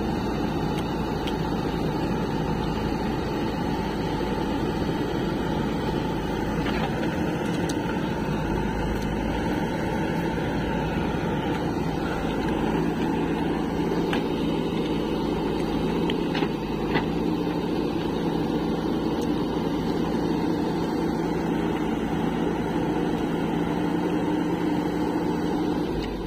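Heavy diesel engines running steadily: a JCB 3DX backhoe loader working as it digs mud, right beside a Sonalika DI-50 tractor. Two brief clanks come about two-thirds of the way through.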